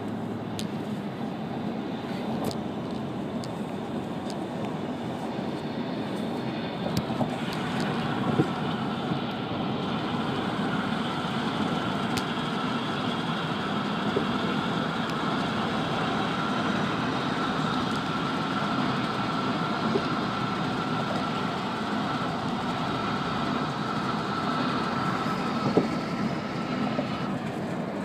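Steady road and engine noise heard from inside a moving car. From about seven seconds in until near the end, a thin, steady high whine runs through it.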